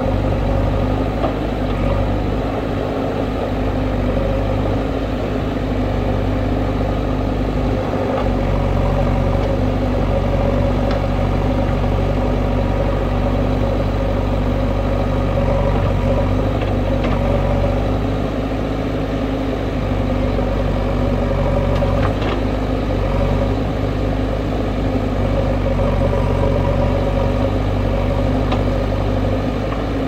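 Diesel engine of a JCB 3DX backhoe loader running steadily at an even speed while the machine works.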